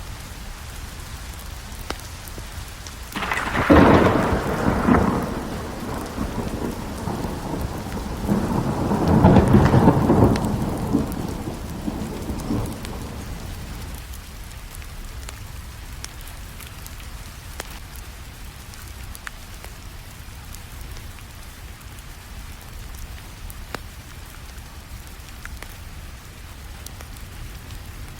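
Steady rain with a thunderclap about three seconds in, followed by a second rolling rumble that builds around nine to ten seconds and dies away by about fourteen seconds. Faint scattered crackles of a fireplace fire run under the rain.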